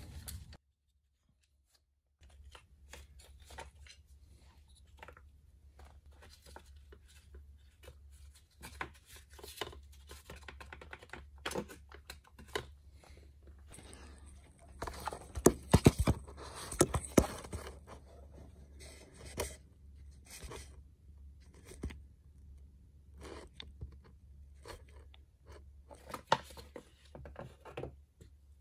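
Scattered clicks, scrapes and rattles of tools and parts being handled during work on a car engine, with a cluster of louder knocks about fifteen to seventeen seconds in, over a steady low hum.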